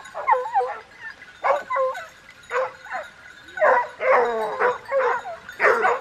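A pack of hunting dogs barking and yelping in short bouts, several voices overlapping thickest about two-thirds of the way through.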